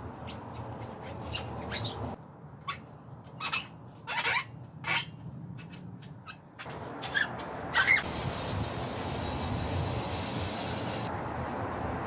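Hand work on an old mountain bike: a series of sharp clicks and short scraping strokes, then a steady hiss lasting about three seconds that starts and stops abruptly.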